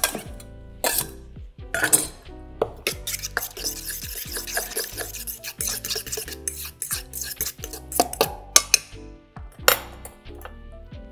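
A knife blade scrapes chopped dill into a stainless steel bowl. Then a utensil stirs and scrapes round the metal bowl through a thick dill sauce, with sharp clinks against the steel, the loudest near the end. Quiet background music plays underneath.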